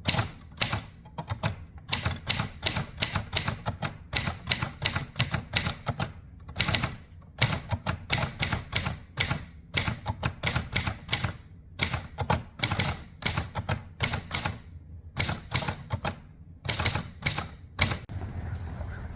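Portable typewriter, the 1929 Continental, being typed on: a fast, irregular run of sharp key strikes, several a second, stopping about a second before the end.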